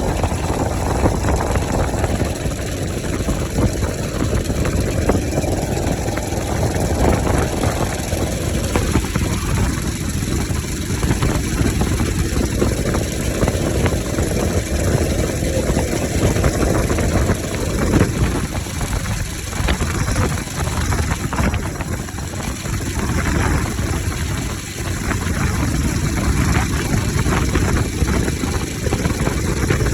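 Bajaj Pulsar RS200 motorcycle engine running with its air filter removed, so the intake is open. The engine note swells and eases several times, each rise lasting a few seconds, as the throttle is opened and closed.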